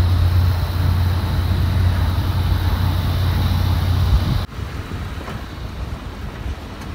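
Steady low drone of a running vehicle, cutting off abruptly about four and a half seconds in, followed by quieter wind noise on the microphone.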